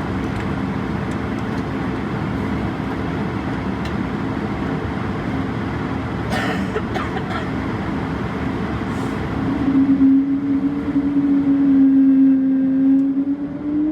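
Airbus A220-300's Pratt & Whitney PW1500G turbofans heard from inside the cabin on the ground: a steady rumble with a low hum. About ten seconds in the hum grows louder, and near the end it rises in pitch as the engines spool up.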